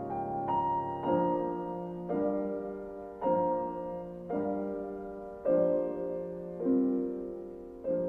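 Background piano music: slow chords struck about once a second, each left to ring and fade before the next.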